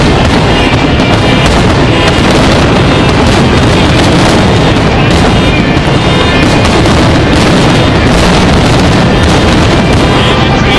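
Loud music, heavily compressed, with a dense, irregular barrage of fireworks booms and crackles mixed in throughout.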